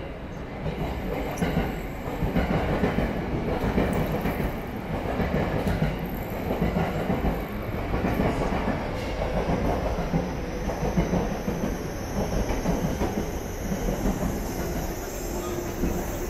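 Train running along the rails, a dense steady noise, with a high whine rising slowly in pitch over the second half.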